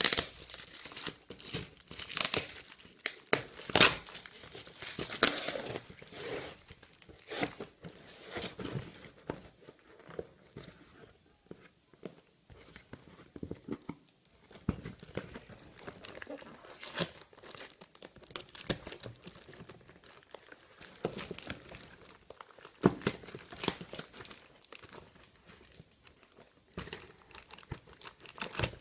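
Plastic courier bag crinkling and tearing as it is cut open with scissors and pulled apart by hand, in irregular bursts of rustling with a quieter spell midway.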